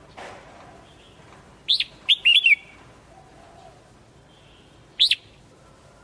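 Red-whiskered bulbul singing: a quick phrase of four or five loud, clear notes about two seconds in, then a single note about five seconds in.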